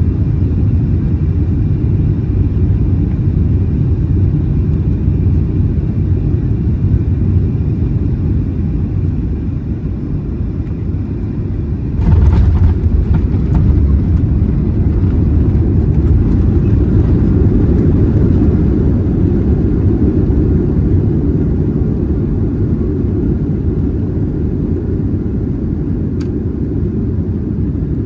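Cabin noise of a Boeing 737-800 on final approach: a steady low rumble of its CFM56 engines and airflow, with a faint whine. About twelve seconds in the wheels touch down with a sudden jolt of clatter, then the roar grows louder for several seconds on the landing roll and slowly eases as the jet slows.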